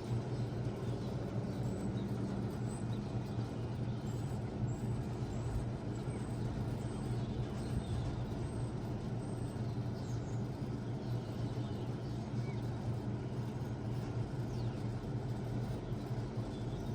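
1995 Bard 3-ton wall-hung heat pump running steadily in cooling mode: a constant low compressor hum with the outdoor fan's steady rush.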